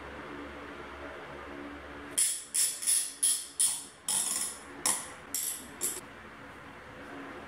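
Metal bar clamps being fitted and tightened on a glue-up: about nine short, sharp metallic rattles over roughly four seconds as the clamp jaws are slid along their bars. A faint steady hum comes before them, in the first two seconds.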